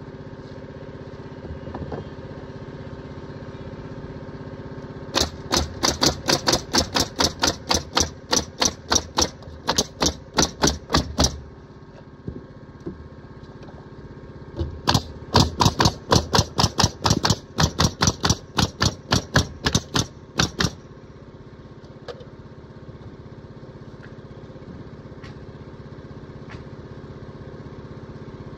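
Pneumatic nail gun firing nails into wooden fence pickets in two quick runs of about six seconds each, roughly three shots a second, over a steady motor hum.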